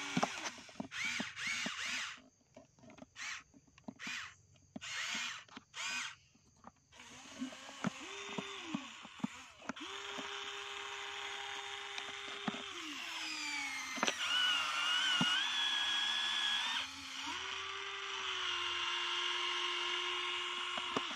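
Electric motors and gearboxes of a Huina RC toy excavator whining as the arm and bucket move: short stop-start bursts for the first several seconds, then longer steady runs whose pitch steps and falls as the motors change load.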